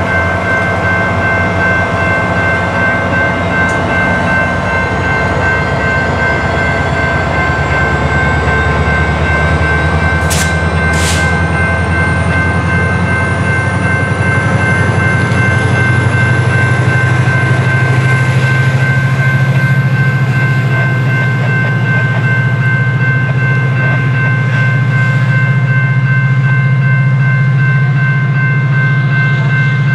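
Diesel engine of a SunRail MP32PH-Q commuter locomotive as it moves its train away from the platform, running steadily with a constant high whine; its low engine note grows stronger about halfway through. Two sharp clacks come about ten seconds in.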